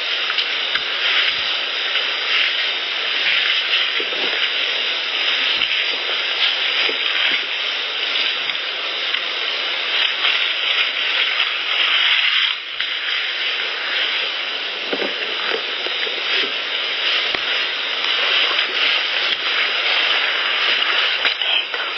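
Heavily boosted field recording from a voice recorder: a loud, steady hiss with scattered faint ticks and a brief break about twelve and a half seconds in.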